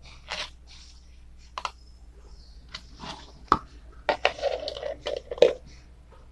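Plastic lid handled against a plastic tub: scattered sharp clicks and scrapes, growing denser from about three seconds in as the lid is pressed onto the rim.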